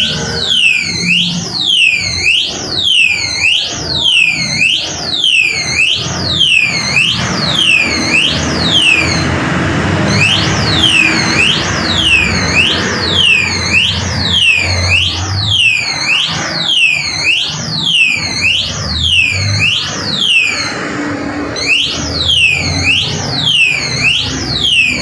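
Motorcycle alarm going off: a loud electronic whoop repeated about one and a half times a second, each tone dipping and sweeping back up. The pattern stops briefly about nine seconds in and again about twenty-one seconds in, then resumes.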